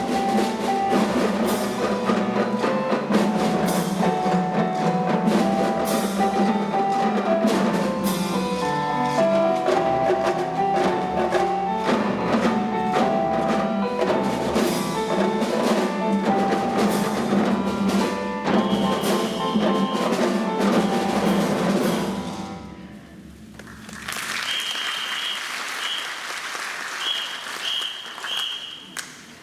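Music for a children's stage performance, with percussion and mallet instruments, playing steadily and then fading out about 22 seconds in. About two seconds later applause starts and runs on.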